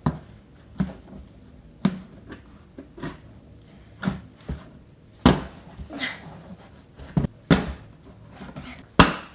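Irregular knocks and bumps, about one a second, with a few longer, louder scuffs near the middle and end, from a taped cardboard box being handled and worked at to get it open.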